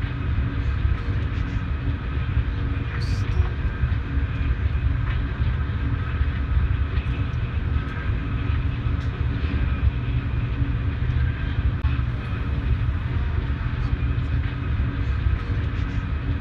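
Cabin running noise of a Eurostar Class 374 high-speed train travelling at about 300 km/h: a steady low rumble with a few faint constant tones above it. A short sharp click about three seconds in.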